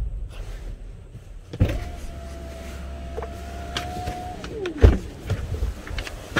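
A Tesla Model 3's electric window motor runs for about three seconds after a click, a steady whine that drops in pitch as it ends in a thump.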